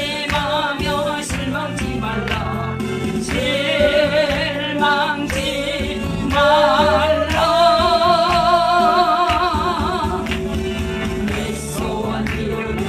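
A Christian worship song: a solo voice sings long, wavering held notes over instrumental accompaniment.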